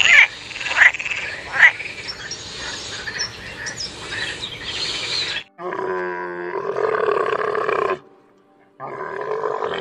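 A frog calling, a few sharp croaks over a noisy pond background for about five seconds, then a camel's long, wavering grunting bellow.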